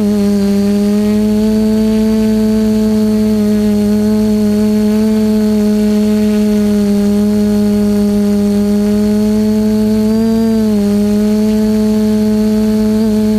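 TBS Discovery quadcopter's motors and propellers humming steadily at a hover, with a thin high whine above the hum. The pitch rises briefly and drops back a little after ten seconds in.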